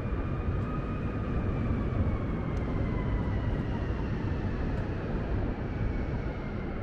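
Steady city street noise, with a faint whine that rises a little and then slowly falls over several seconds.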